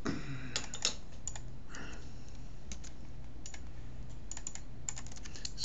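Irregular clicking of a computer keyboard and mouse, short taps in small clusters, over a steady low hum.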